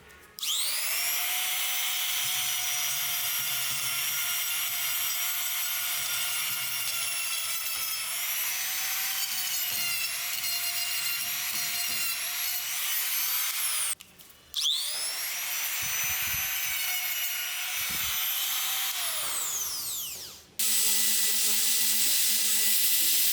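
Electric power tool running in two spells. Each time its motor whine rises as it spins up, holds steady while working, and falls away as it spins down. About three seconds before the end it gives way to a different steady, noisier machine sound.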